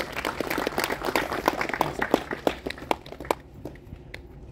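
A small audience clapping, a dense patter of hand claps that dies away after about three seconds into a few scattered claps.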